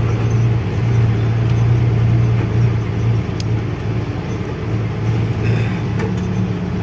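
A 12-wheel truck's diesel engine running steadily on the move: a constant low drone with road noise.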